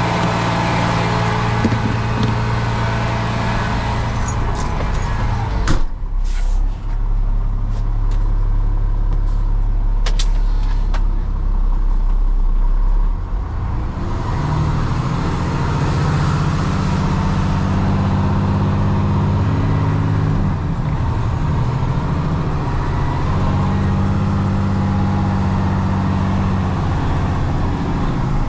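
Peterbilt 337 tow truck's diesel engine running, first idling, with a loud thump about six seconds in and a few clicks after it. From about fourteen seconds the truck pulls away, the engine's pitch climbing and shifting through a gear change.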